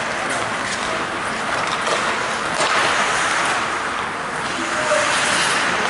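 Ice hockey skates hissing and scraping across the ice, with a few sharp clicks of sticks and puck.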